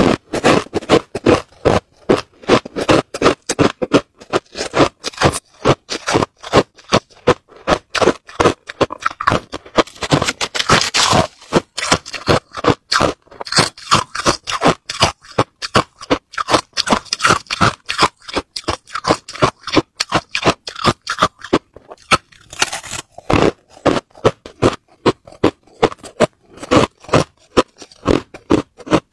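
Crushed ice being chewed close to a clip-on microphone: a fast, steady run of crisp crunches, a few each second, with a short break about three-quarters of the way through.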